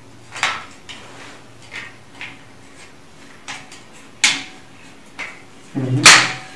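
Hinged metal legs and joints of a folding laptop table being swung and folded: a string of sharp clicks and clacks, with the loudest knocks about four seconds in and about six seconds in.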